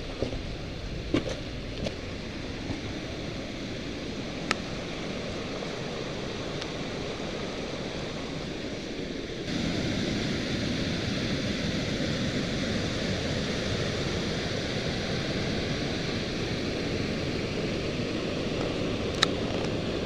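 Mountain waterfall cascading over rocks: a steady rush of falling water that gets louder about halfway through. A few sharp clicks sound over it.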